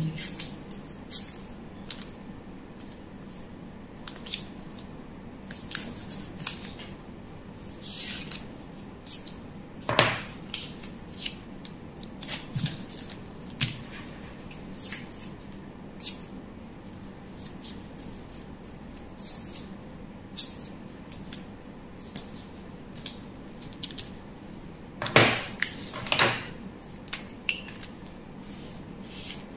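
Masking tape being pulled off the roll and torn, and pressed onto paper pattern pieces, with paper rustling: scattered short sharp rips and taps, the loudest about ten seconds in and twice around twenty-five seconds in.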